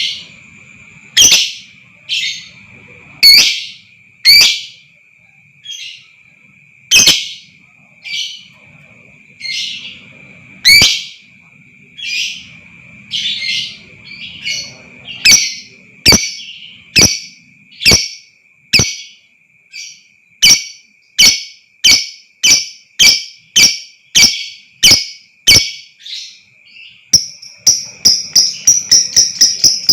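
Lovebird giving loud, shrill single calls, irregular at first and then in a steady run of about one and a half calls a second, over a continuous high, thin ringing tone. Near the end a fast, rapidly repeating trill begins.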